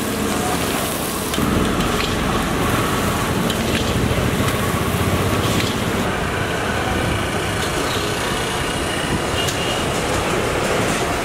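Street traffic noise: a steady din of passing vehicles and motorbikes. For the first second or so, onions frying in a kadai sizzle before the traffic noise takes over and grows louder.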